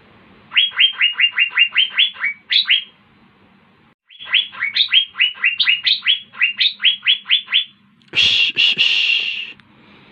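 Asian fairy-bluebird singing: two rapid runs of sharp, down-slurred whistled notes, about four to five a second. Then a harsh, rasping burst lasting about a second and a half near the end.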